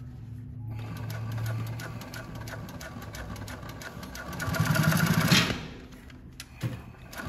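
JUKI LU-2810 walking-foot industrial lockstitch sewing machine stitching through a thick stack of denim layers, its needle strokes a rapid steady patter over a motor hum. It runs louder and faster from about four seconds in, then stops about five and a half seconds in.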